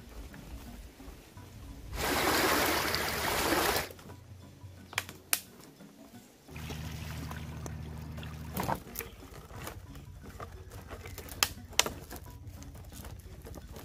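Background music with steady low tones. About two seconds in comes a loud rush of water that lasts about two seconds. Several sharp clicks follow later.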